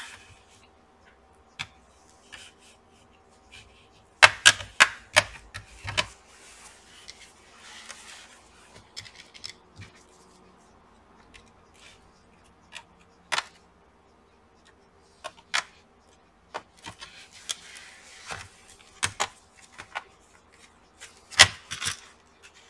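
Plastic bottom cover of an Acer Aspire 7 laptop clicking and snapping as its clips are pried apart from the chassis by hand: scattered sharp clicks, a quick run of several about four to five seconds in, with quieter rubbing of plastic between.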